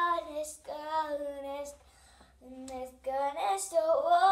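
A girl singing a tune in held notes, with a short break about halfway through, the notes bending upward near the end.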